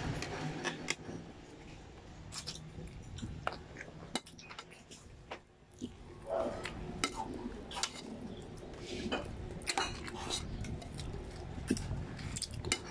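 Close-up mouth sounds of eating chicken feet by hand: chewing, sucking and lip smacks, heard as many short, scattered clicks and smacks.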